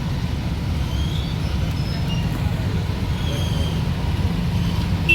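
Steady low rumble of vehicle traffic and running engines.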